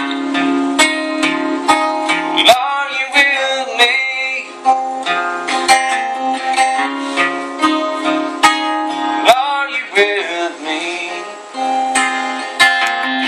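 Two acoustic guitars playing an instrumental break in a country song: strummed chords underneath a picked lead line with bent, sliding notes.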